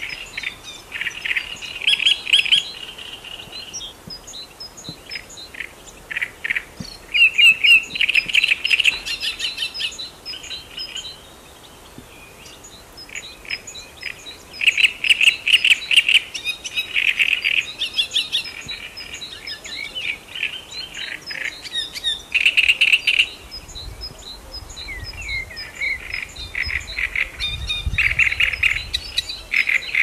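Great reed warbler singing: phrases of rapid, repeated chattering notes that come in bursts of a second or two, separated by short pauses.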